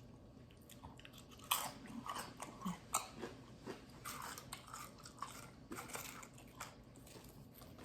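Close-up chewing of a buffalo chicken quesadilla: irregular small crunches and wet mouth clicks, starting about a second and a half in.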